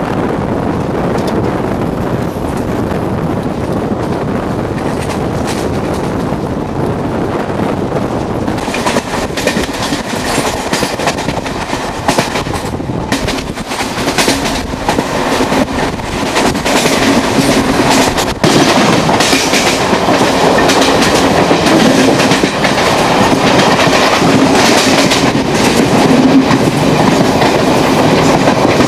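Mangala Express passenger train running on the rails, its wheels clicking over the rail joints in a steady rumble that grows louder about halfway through.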